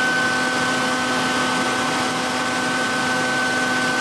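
Belt knife-sharpening machine running together with its dust-extraction vacuum: a steady motor whine over an even rushing hiss.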